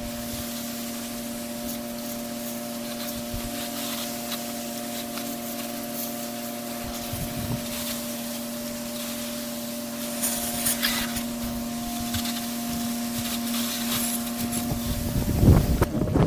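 Pressure-washing equipment running with a steady hum while water hisses from a spray wand onto a surface. A loud low buffeting comes in near the end.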